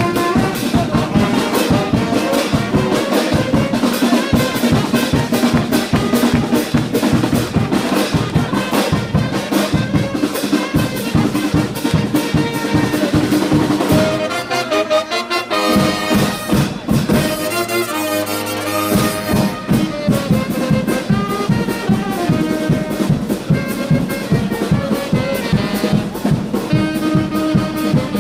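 Brass band music, with trumpets and trombones over a steady drum beat, the kind of band that accompanies banner-waving in a religious street procession.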